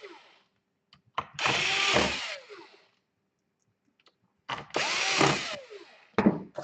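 Electric screwdriver driving small screws into a laptop's hard drive mount: two short runs of the motor, each about a second long and about three seconds apart, with small clicks between them.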